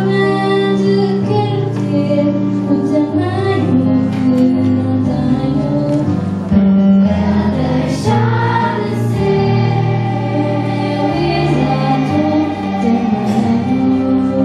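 Children's choir singing a song with electronic keyboard accompaniment, voices and keyboard holding chords together: the closing bars of the song.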